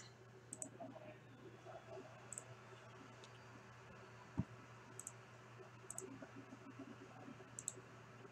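Faint, scattered computer mouse clicks over a steady low hum, with one soft knock a little past the middle.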